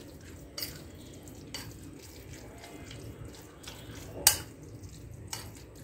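A steel spoon stirring thick, wet oats-and-vegetable batter in a glass bowl: soft wet squelching, with a few sharp clinks of the spoon against the glass, the loudest about four seconds in.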